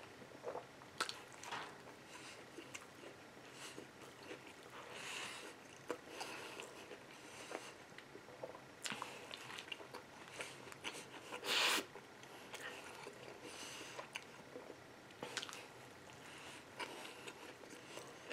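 A person biting into and chewing big mouthfuls of a burger, with soft wet mouth clicks and squishing. One louder, short rush of noise about two-thirds of the way through.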